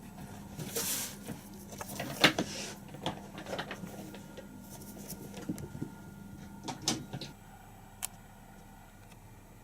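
Kittens playing and scrambling about: scattered taps, scrabbling and rustling with a sharp knock about two seconds in, quieter after about seven seconds.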